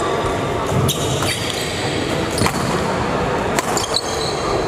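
Badminton rackets striking a shuttlecock in a rally: five sharp, ringing hits about a second apart, two of them in quick succession near the end, over a steady echoing hall background.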